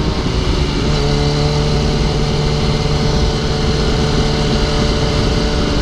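Yamaha R1 sport bike's inline-four engine running under way at a steady pitch, after a slight rise about a second in, with wind noise rushing over it.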